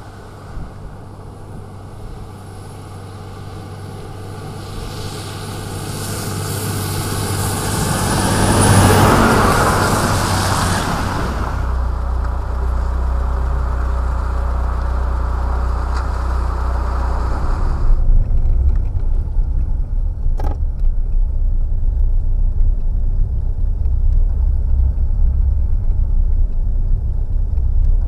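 Road traffic: a vehicle's engine and tyre noise builds and passes close, loudest about nine seconds in. After an abrupt change about eighteen seconds in, a steady low rumble follows, with a click a couple of seconds later.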